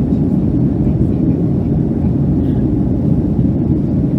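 Steady jet engine and airflow noise heard from inside the cabin of a Boeing 757-200, a low, even rumble without change.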